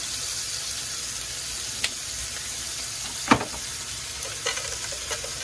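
Pork slices sizzling in a hot frying pan, a steady frying hiss. A light click just before two seconds in and a sharper, louder clack a little over three seconds in.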